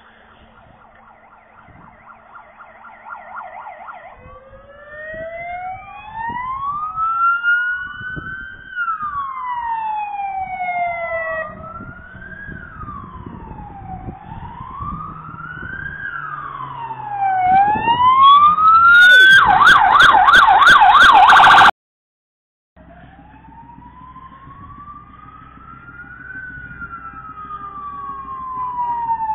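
Fire engine sirens: a fast warbling yelp, then slow rising-and-falling wails from more than one siren overlapping. A very loud fast yelp follows and cuts off suddenly, and after a moment one slow wail rises and falls over the low rumble of vehicle engines.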